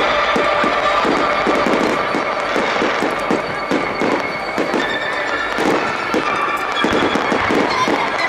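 Fireworks display: a rapid, continuous barrage of shell bursts and bangs, many overlapping, easing slightly around the middle before picking up again.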